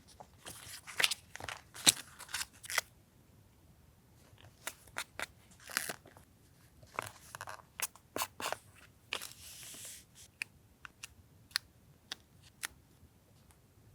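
Paper and stationery being handled for a collage journal page: crisp paper rustling and crinkling with irregular sharp clicks and taps, and a longer rustle about nine seconds in.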